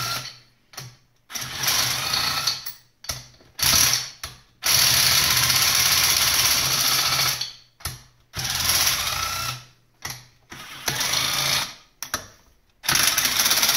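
Small Rockwell cordless impact driver backing out the cylinder base bolts of a two-stroke snowmobile engine, running in about seven short bursts with one longer run of about three seconds in the middle.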